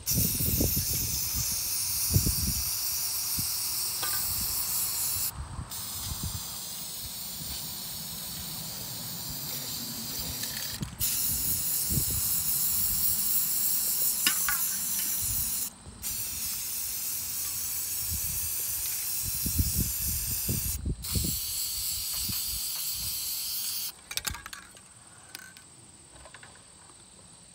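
Aerosol spray paint can hissing in long bursts as paint is sprayed onto water for hydro dipping, the nozzle let go briefly about every five seconds, stopping a few seconds before the end. Wind rumbles on the microphone underneath.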